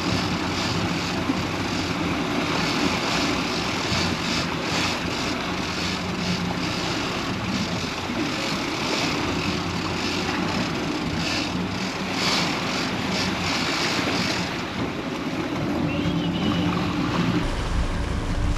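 Sportfishing boat underway: its engines running steadily, mixed with wind and the rush of water from the wake. Near the end the low rumble of wind on the microphone grows stronger.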